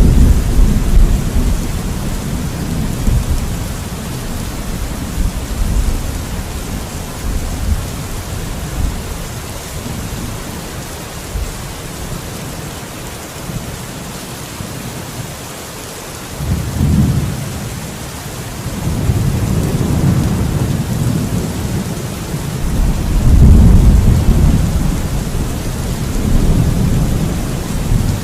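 Thunderstorm: steady rain falling throughout, with rolling thunder that rumbles low, eases off in the middle, then swells again twice in the second half.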